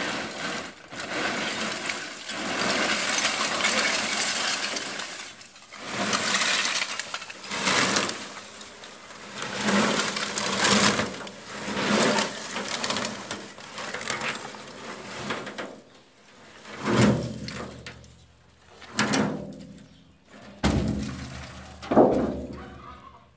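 Coconut-shell charcoal clattering and crackling as it pours out of a tipped steel drum kiln at the end of the burn, in a dense rush at first and then in shorter spills. Near the end come several separate knocks from the empty metal drum, each with a short ringing tone.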